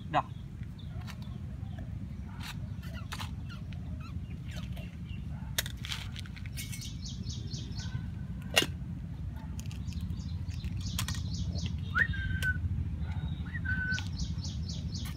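Birds chirping over a steady low background rumble, with a few sharp metallic clinks from the steel food container and bowl; the loudest clink comes about two-thirds of the way through. Near the end, two short bird calls each rise quickly and then hold.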